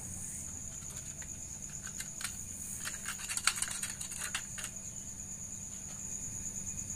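Cutter blade scraping old, hardened gasket residue off the motorcycle engine's clutch-case mating surface in short scratchy strokes, mostly between about two and four and a half seconds in. Crickets chirp steadily behind it.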